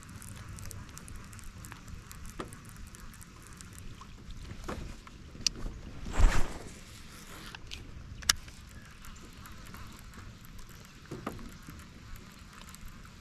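Light rain pattering steadily on the water and boat. About six seconds in, a loud rushing burst with a low knock as a fishing rod is swung in a cast, with a few sharp clicks around it.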